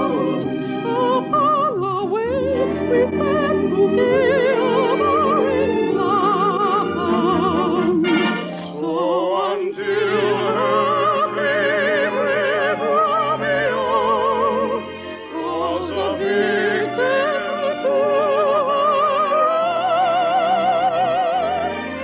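Operetta singing with a wide, wavering vibrato over orchestral accompaniment, the phrases held long and sliding between notes. The old broadcast recording has no high end.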